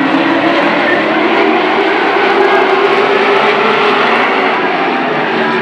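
A pack of late model stock cars' V8 engines running together at racing speed, a steady loud drone of several engines at once that swells slightly about two seconds in.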